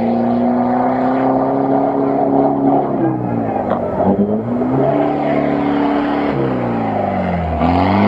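Off-road pickup's engine revving under load while driving through a deep mud pit. The revs hold high, fall away about three seconds in and again near the end, and climb back each time.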